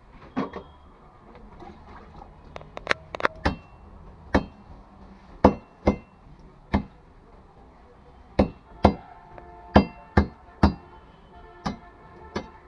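A wooden mallet knocking on the back of a knife blade to chop a tilapia into pieces: about fifteen sharp knocks at an uneven pace, some in quick pairs, a few with a short metallic ring.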